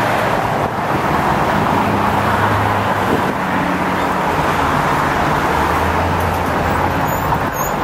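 Steady rush of road traffic, with a low vehicle engine hum that swells twice.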